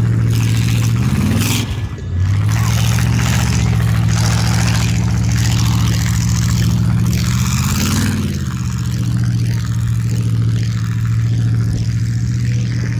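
A vehicle engine running loudly and steadily, revving up briefly about a second and a half in and again around eight seconds.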